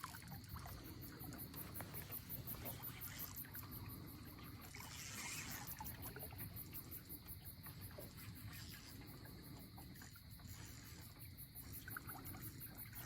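Faint river ambience around a boat: a low, steady water murmur with a few small knocks, a constant thin high tone, and a brief hiss about five seconds in.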